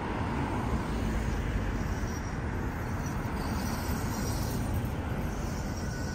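Road traffic on a multi-lane city avenue: cars driving past, a steady noise of tyres and engines.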